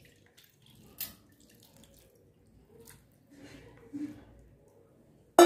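Lemonade poured from a steel pot through a plastic mesh strainer, trickling and dripping into a steel bowl, with a couple of light knocks. A sharp metal clank at the very end.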